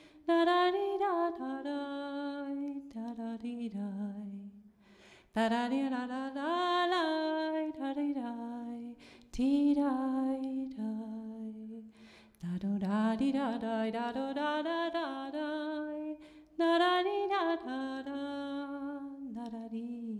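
A single unaccompanied voice singing a zamba melody on wordless 'tarara' syllables, in phrases of a few seconds with short breath pauses between them.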